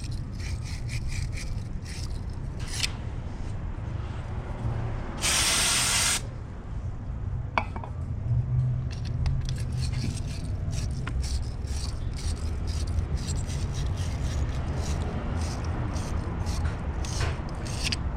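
Rubbing and scraping of gritty engine parts being wiped down by hand, in many short strokes. About five seconds in, a loud hiss lasts about a second.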